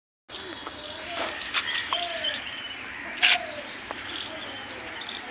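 Outdoor ambience of birds chirping and calling, over a steady high insect-like hiss. The sound cuts in after a brief dropout at the start, and there is a sharper, louder chirp about three seconds in.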